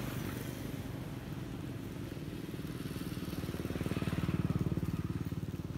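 A small engine running nearby, a low pulsing hum that grows louder about four seconds in and then eases off.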